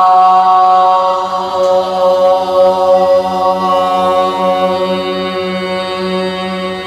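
Women's voices holding one long sung vowel on a single steady pitch, a pansori voice-production (발성) breathing exercise. The tone slowly grows quieter toward the end.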